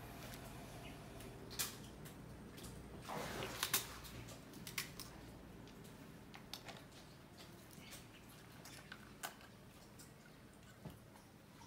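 Crocodiles crunching snail shells in their jaws: scattered sharp cracks and clicks at irregular intervals, with a short rustling scrape about three seconds in.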